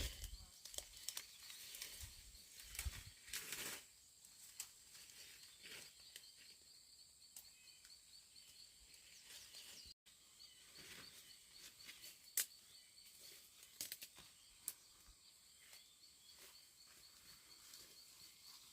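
Faint rural outdoor ambience: an insect trills steadily in rapid high pulses, with scattered soft rustles and clicks.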